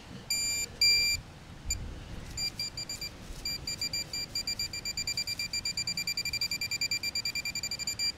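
Handheld metal-detecting pinpointer beeping at one high pitch: two longer beeps about half a second and a second in, then from about two and a half seconds a run of short beeps that speed up to several a second as the probe closes in on a buried target.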